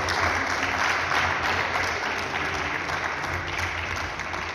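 Audience applause: many hands clapping together, easing off a little about three and a half seconds in.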